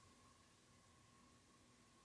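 Near silence: faint room tone with a steady, faint hum.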